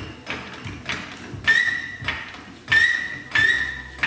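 Red Pittsburgh hydraulic floor jack being pumped by its long handle: a steady run of sharp clicks, about three a second, with three short ringing metal pings, one near the middle and two near the end.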